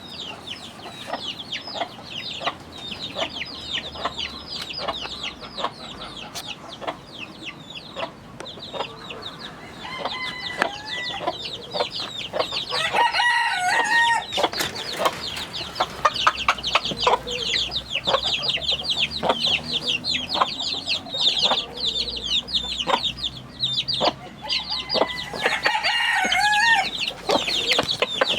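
A flock of chickens calling, with many short, high calls overlapping throughout. A rooster crows twice, about halfway through and near the end.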